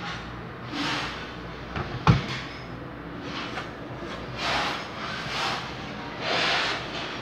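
Handling noise from a desktop PC tower case being turned around: one sharp knock about two seconds in, and several short swishes.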